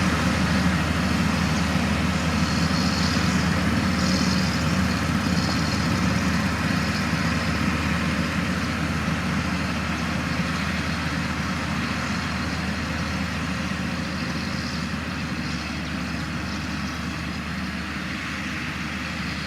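Heavy diesel engine of earthmoving equipment running steadily, slowly growing a little quieter.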